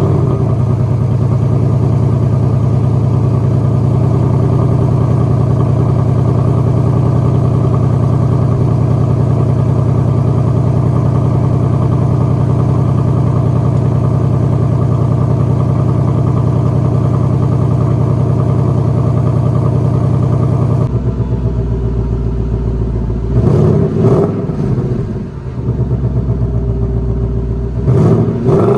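Ford Mustang GT's 5.0 V8 idling steadily on its factory headers just after start-up; the idle steps down about twenty seconds in, then the engine is revved briefly twice.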